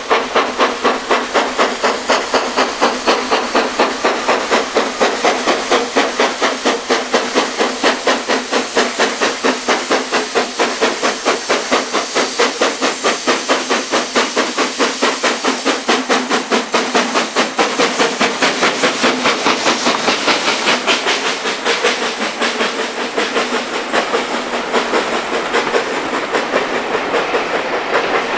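Steam locomotive working under steam, its exhaust beating about four times a second with a loud hiss. The beats grow less distinct in the last few seconds.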